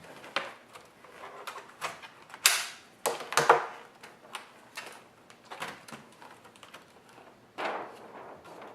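HP 2000 laptop being handled while its battery is taken out: a run of sharp plastic clicks and knocks, loudest about two and a half to three and a half seconds in, with another knock near the end.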